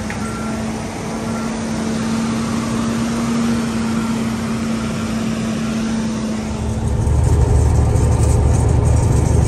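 Heavy diesel truck engines running close by, with a backup alarm beeping faintly in the first few seconds. About seven seconds in, a much louder, deeper diesel rumble sets in, as a truck pulls up or revs nearby.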